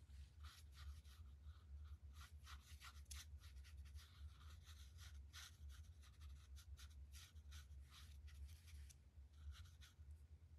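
Faint, irregular strokes of a paintbrush brushing and scrubbing across watercolour paper as paint is blended, over a steady low hum.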